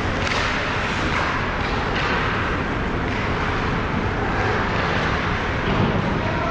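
Steady rumbling din of an indoor ice hockey rink during play, with a few brief hissing scrapes of skates on the ice.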